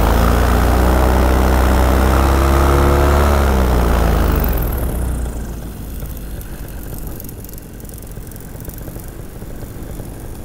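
Paramotor engine and propeller running at steady throttle, then throttled back a few seconds in, its pitch falling away as it spools down. After that mostly wind rush is left while the paramotor glides in to land.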